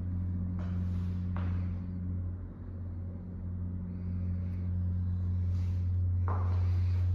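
A steady low mechanical hum with a fainter, higher tone above it, and a few short rustling sounds about half a second and a second and a half in, and again near the end.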